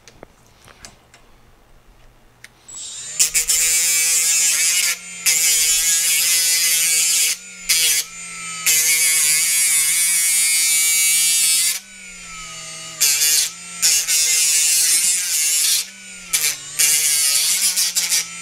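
Right-angle die grinder with a small abrasive disc spinning up about two and a half seconds in, then grinding steel in several stretches with short breaks, cleaning up the weld on a steel seat-bracket nut. The motor's pitch sags and recovers as the disc bites.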